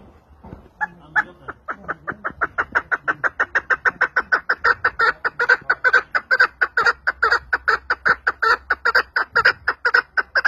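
Partridge calling: a long, fast run of repeated short notes, about five to six a second, that starts faintly and grows louder, then stops abruptly.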